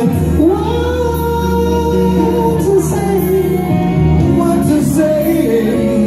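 A man singing into a handheld microphone over recorded backing music, holding long notes that slide between pitches.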